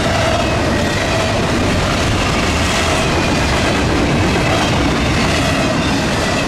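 Double-stack intermodal freight cars rolling past: a steady loud rumble and clatter of steel wheels on the rails, with faint squealing tones from the wheels over it.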